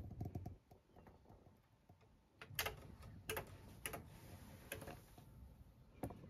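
Low-level quiet with a handful of faint, sharp clicks at irregular intervals, starting about two and a half seconds in.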